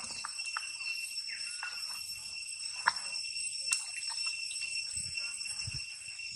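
A steady, high-pitched drone of insects with even overtones, over light splashing as a baby macaque paddles in pond water; a sharp click stands out about three seconds in.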